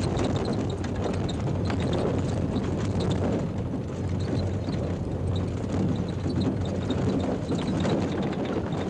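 Triumph Stag prototype driven over Belgian pavé cobbles: a continuous clatter and drumming of the tyres and suspension pounding over the stones, full of irregular knocks, over a low drone from the car.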